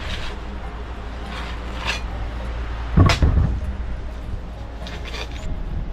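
Hammer blows breaking up a concrete tank wall, about four irregular strikes with the loudest about halfway through, over a steady low rumble.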